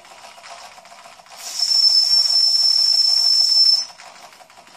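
A toy live-steam engine's whistle blows once, starting about a second in and lasting about two and a half seconds: a single steady high-pitched tone with steam hiss. A fainter steady hiss from the running engine lies under it throughout.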